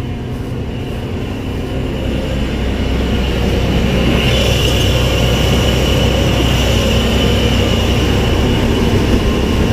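Combine harvester running, a steady low drone that grows louder about three to four seconds in, when a steady high whine joins it.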